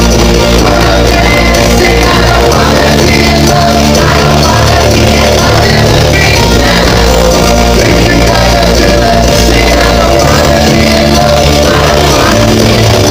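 Rock band playing live in a hall, heard from within the audience: loud, continuous full-band rock music with singing.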